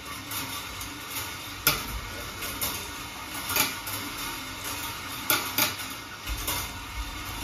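Glass marbles rolling along the steel-wire rails of a rolling-ball sculpture: a steady light rattle, broken by a few sharp clicks as marbles strike the wire or one another, two of them close together about five and a half seconds in.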